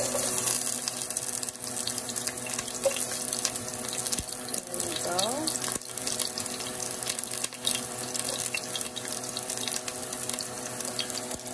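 Sliced onions sizzling and crackling in hot vegetable oil in a pot. The sizzle starts suddenly as the onions hit the oil and keeps up as a steady hiss with many small crackles.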